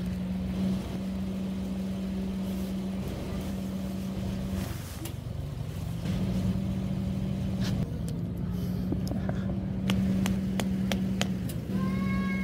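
A steady low motor hum with a rumble beneath it, broken by a few sharp clicks late on, and a cat's meow that starts near the end.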